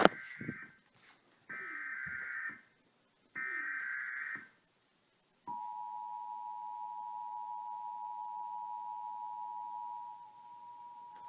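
Emergency Alert System activation: after a sharp click, three bursts of about a second each of SAME digital header data, a shrill buzzy warble, then the EAS two-tone attention signal (853 and 960 Hz) sounding steadily, dropping in level about ten seconds in.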